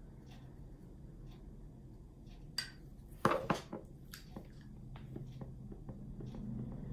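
Small hard objects clinking and clattering, several sharp clicks about halfway through with a few smaller ones after, over a faint tick about once a second.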